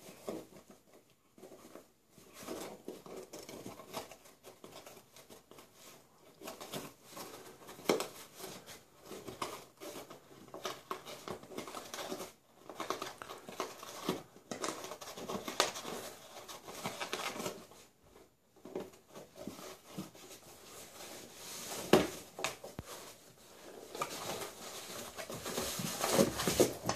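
A small cardboard box scraping and rustling as a Bracco Italiano puppy chews at it and pushes and drags it about, in irregular bursts of scratching with a few sharper knocks.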